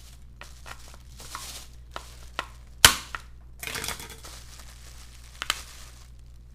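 Shell of a boiled blue crab being cracked and pulled apart by hand and knife: crunching, crackling and tearing, with one loud sharp crack about three seconds in and a couple of clicks near the end.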